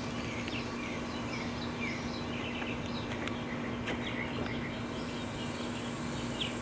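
Outdoor ambience: short bird chirps scattered throughout over a steady low hum, with a few faint clicks.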